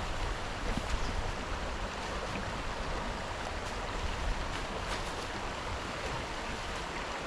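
Steady rushing of creek water mixed with wind buffeting the microphone, with a few faint ticks.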